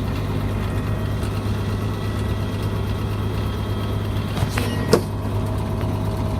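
Heavy diesel engine running steadily with a low, even drone, with two short sharp knocks about four and a half and five seconds in.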